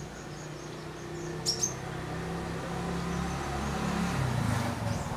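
A motor vehicle's engine hums steadily, growing louder toward the end as if passing by. Two sharp high bird chirps come about one and a half seconds in.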